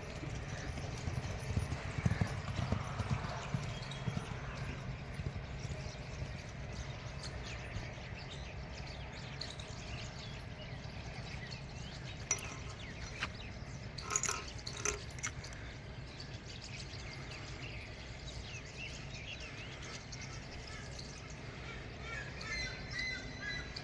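Outdoor field ambience with a steady low background noise, a few sharp knocks about halfway through, and faint bird chirps near the end.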